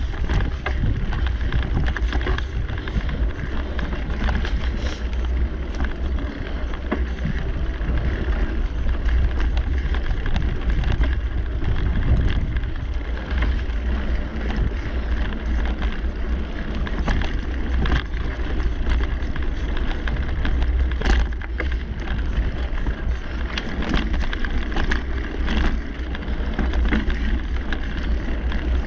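Mountain bike ridden fast along a dirt singletrack: a continuous rumble of wind and tyres on the bike-mounted microphone, with frequent small clicks and rattles from the bike over bumps.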